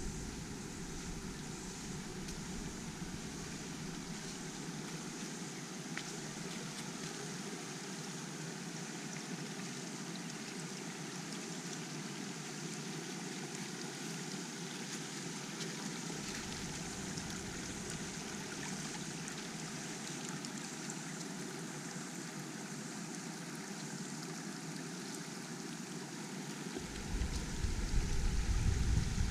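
Creek water running steadily, a constant rushing hiss. Wind on the microphone adds a low rumble at the start and again near the end.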